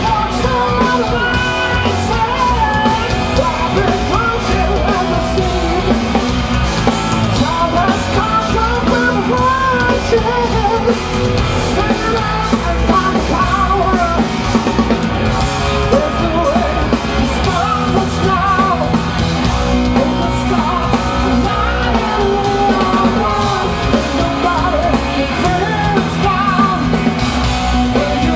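Live hard rock power trio playing loud and continuously: electric guitar through Marshall amplifiers, bass guitar and a drum kit, with a sung lead vocal wavering in pitch over them.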